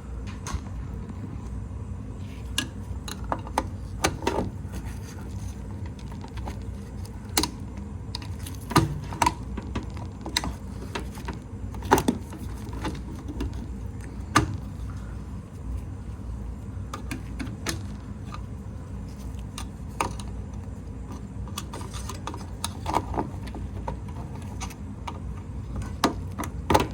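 Slack metal drive chain of a Craftsman garage door opener clinking and rattling irregularly as it is worked by hand back onto the track, with scattered sharp clicks over a low steady hum.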